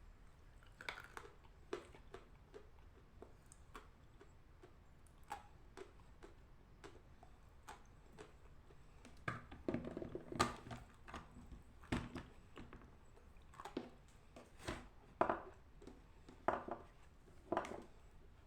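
Lumps of dry natural chalk crunching and snapping: a series of short, crisp crunches and small clicks at irregular intervals, with a busier patch about halfway through.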